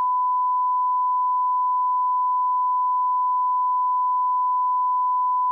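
A steady, unwavering 1 kHz reference test tone: the line-up tone that runs with colour bars at the head of a tape.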